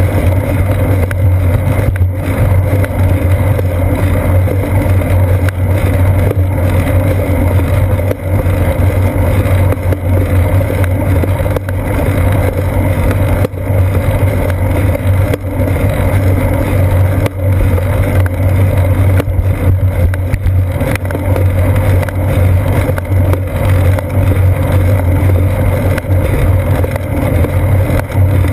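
Steady low rumble of wind and road vibration picked up by a seat-post-mounted GoPro Hero 2 on a moving bicycle, with a few small knocks from bumps in the road.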